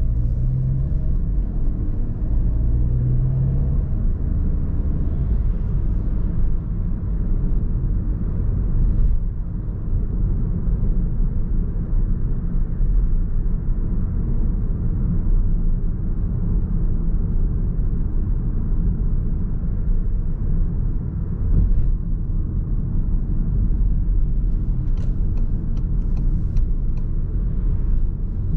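Car driving, with a steady low rumble of engine and road noise. A short run of faint clicks comes near the end.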